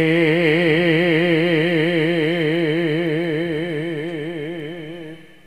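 A deep voice holding one long sung note with a wide, even vibrato, in the style of Javanese jaranan chant singing. It fades out near the end.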